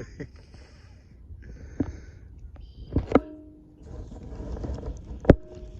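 A few sharp knocks and clicks over a low wind rumble, the loudest knock coming near the end.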